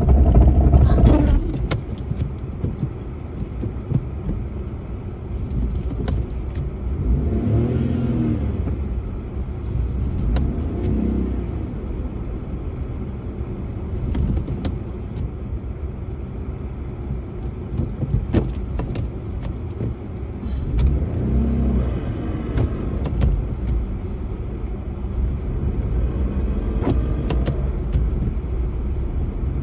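Car interior noise while driving on a snow-covered road: a steady low rumble of engine and tyres, with the engine note rising and falling a few times and occasional sharp knocks.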